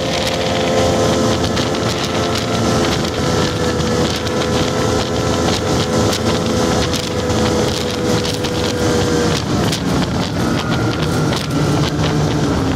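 Snowmobile engine running steadily at trail speed, with wind buffeting the microphone and rapid clicking rattles. About ten seconds in, the engine note changes to a lower tone.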